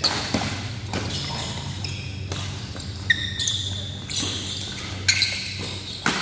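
Badminton doubles rally: rackets strike the shuttlecock with sharp cracks, seven or eight of them about a second apart, while shoes give short squeaks on the court surface. A steady low hum runs underneath.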